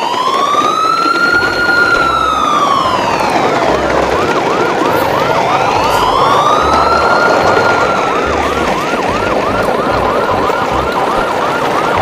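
Siren sound effect wailing in two slow rising and falling sweeps, with a faster yelping chirp joining about two seconds in and repeating a few times a second, over low regular thuds.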